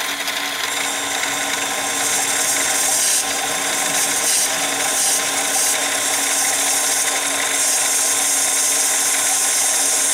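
Harbor Freight mini lathe parting off G5 titanium with a high-speed steel parting blade at slow spindle speed, the tool pushed hard into the cut: a steady, bright scraping hiss over the lathe's steady low hum, getting a little louder after about two seconds.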